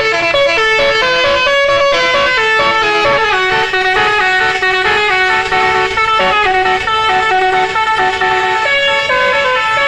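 Bus's telolet basuri musical air horn playing a melody: a continuous run of held horn notes stepping up and down, several pitches sounding together.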